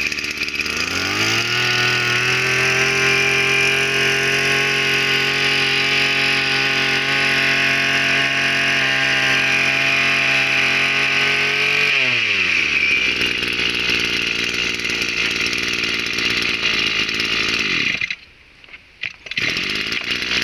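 Echo 23 cc two-stroke engine of a backpack power sprayer running. It revs up from idle about a second in, holds a steady high speed for about ten seconds, then drops back to idle. The sound cuts out for about a second near the end.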